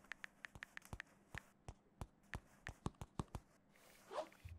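Stylus tip tapping on a drawing screen: a quick, irregular run of sharp little taps that stops about three and a half seconds in.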